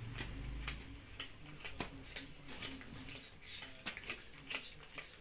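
Paper banknotes being counted by hand: a run of soft, irregular flicks and rustles as the notes are thumbed through one by one.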